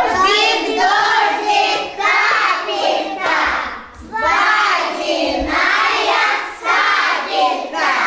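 A group of young children singing together in short phrases with brief pauses between them.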